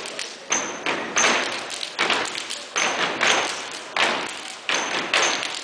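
A step team stomping and clapping in a steady rhythm, each sharp beat ringing on in the hall's echo.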